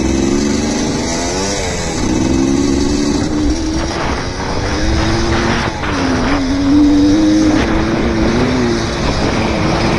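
Dirt bike engine running under load as it rides across loose sand, its revs rising and falling with the throttle.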